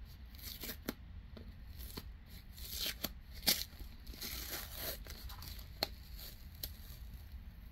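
Tape being peeled off a plastic-wrapped package, with plastic wrapping crinkling as it is handled: irregular rasps and crackles, the loudest crackle about three and a half seconds in.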